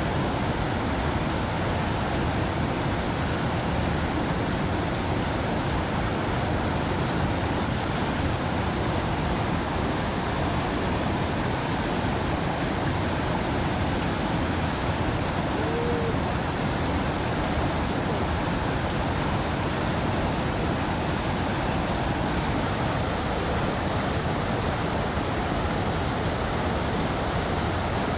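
Steady rushing of flowing water, an even unbroken roar such as a river current or rapids.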